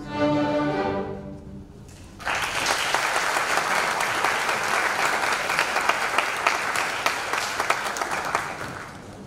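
School string orchestra ending a piece on a held chord that dies away. About two seconds in, the audience breaks into applause, which thins out near the end.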